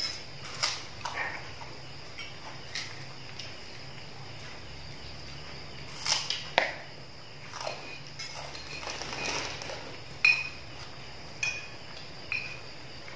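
Occasional light clinks and taps of plates and spoons during a meal, a handful of short sharp ones scattered through, over a steady low hum and a faint steady high tone.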